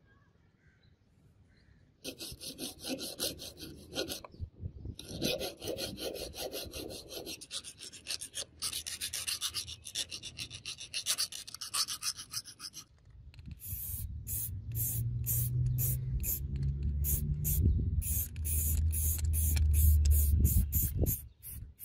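A round file rasping back and forth inside the hole of a small steel jack link, in quick even strokes, starting about two seconds in. In the last third, an aerosol spray-paint can sprays in many short hissing bursts over a low hum.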